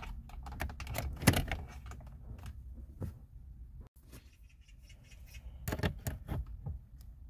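Scattered light plastic clicks and rattles from a Kia New Morning's heater main link (the air-direction mode-door lever) being worked by hand. The lever has come off its pin and catches. There is a sharper click about a second in and a cluster of clicks near the end.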